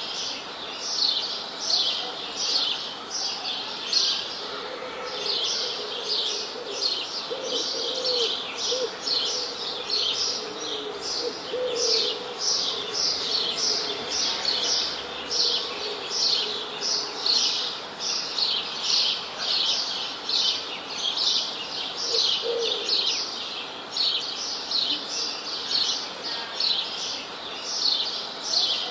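Songbirds chirping: a quick high chirp repeated steadily about one and a half times a second, with a few fainter, lower calls in between, over a soft steady hiss.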